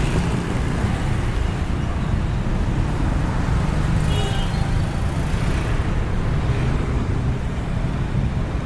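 Steady low rumble of road and traffic noise heard while riding a bicycle along a road, with a brief faint high tone about four seconds in.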